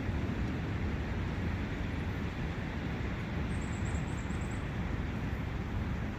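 Steady rushing of a forest brook, a continuous low-heavy wash of water noise. About three and a half seconds in, a small bird gives a brief high trill of about eight quick notes.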